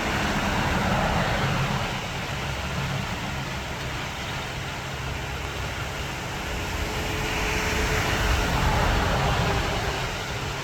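A creek in flash flood, its fast muddy water rushing in a steady, continuous noise that swells slightly about two-thirds of the way through.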